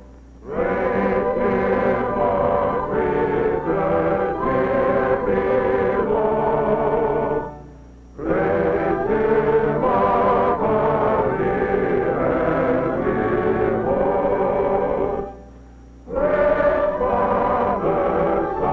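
A choir singing slowly in long phrases, with brief pauses between phrases about 8 seconds in and again near 16 seconds.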